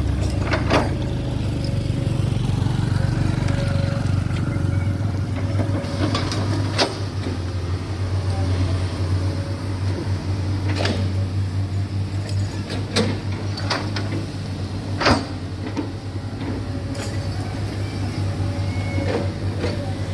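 Heavy diesel earthmoving machinery running steadily with a low drone. Sharp knocks or clanks come every few seconds, the loudest near 7 s and 15 s.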